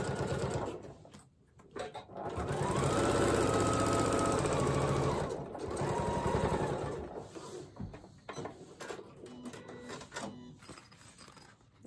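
Janome Skyline S7 sewing machine topstitching through vinyl in three runs, the middle one longest, speeding up and then slowing to a stop. After the last run, about seven seconds in, only light handling sounds follow as the piece is lifted out.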